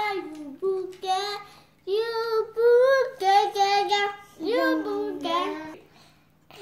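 A young girl singing a short tune in a high voice, a string of held notes with brief pauses between phrases, stopping shortly before the end.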